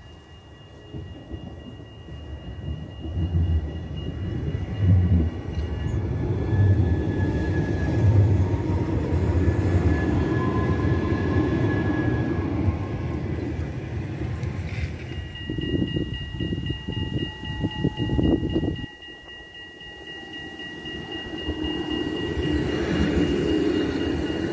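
Electric tram passing close by: a low rumble of wheels on rails that builds as it approaches, with a run of knocks as it goes past. It drops off suddenly near the end, then a second tram's rumble builds.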